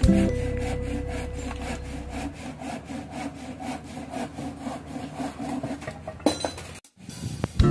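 Hand saw cutting through a wooden board with steady, even back-and-forth strokes, a few per second. A couple of knocks near the end.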